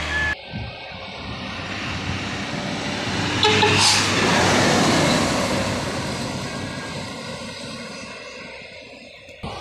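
Hino diesel truck passing close by: engine and tyre noise build to a loud peak about four seconds in, then slowly fade as it moves away.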